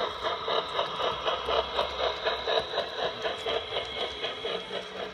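LGB garden-railway model steam tank locomotive (99 4652) running past close by with its freight wagons. It makes an even rhythmic beat of about four a second over a low running hum.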